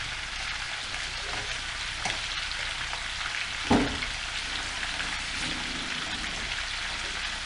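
Pineapple, potato and carrot pieces frying in oil in a pan: a steady sizzle, with a single knock a little after halfway through.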